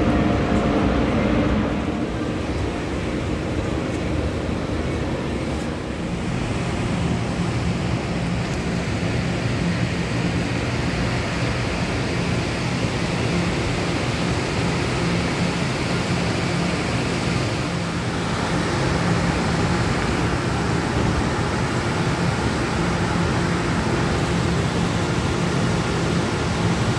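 Train at a station: a steady low engine hum under a continuous rushing noise.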